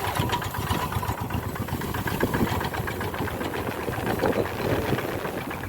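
Tractor engine running steadily with a rapid, even firing beat.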